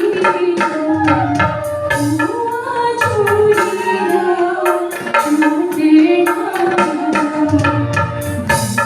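Himachali Pahadi nati folk music: a stepping melody line over a steady rhythm of hand-drum strokes.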